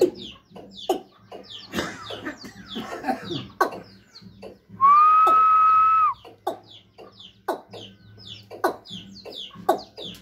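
Male watercock calling: short, falling notes repeated every half second or so. About halfway through, a loud, steady whistle lasts for about a second.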